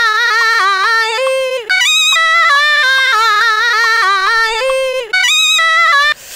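A sung vocal sample played back from an audio clip, a high voice holding stepped notes with a fast wobble, like yodeling. The phrase breaks off and restarts about two seconds in and again near the end, as the clip is replayed with a transpose envelope on it.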